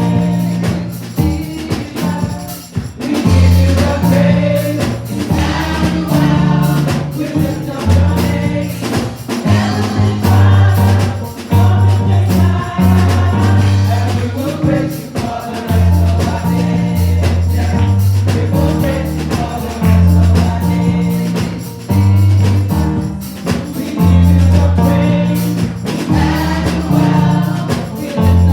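Live gospel praise music: a group singing over a steady bass line and drums with tambourine.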